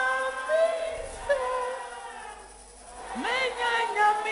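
Congregation voices raised in praise: long held sung or wailed notes, a dip, then a rising shout about three seconds in.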